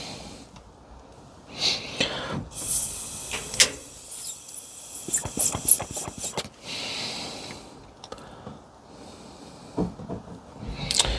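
Gas hissing in short spurts from the open pilot gas line of a hot water heater, with light clicks and taps of small metal parts being handled.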